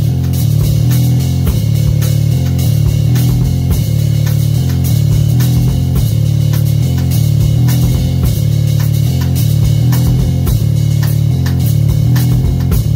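A drum kit played along to a rock track, with a loud bass line of changing low notes under steady drum hits and cymbals.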